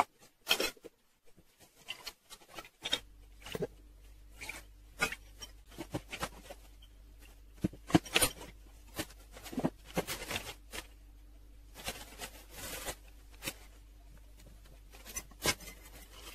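Kitchen handling sounds: a run of irregular clinks, taps and knocks from a glass jar, a steel pot and a spoon being handled on a cooktop. A steady low hum begins about three seconds in.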